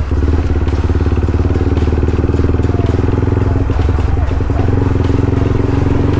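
Motorcycle engine running steadily at low speed, heard from on board while riding.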